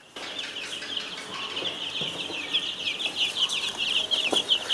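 A brood of ten-day-old chicks peeping nonstop, many quick, falling high chirps overlapping, starting suddenly just after the start. A light knock near the end.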